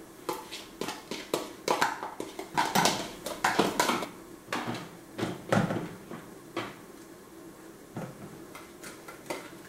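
Plastic kitchen bowls knocking and tapping as chopped onion, chives and coriander are tipped and shaken out of one bowl into a bowl of beaten eggs: a quick run of sharp knocks that thins out after about six seconds.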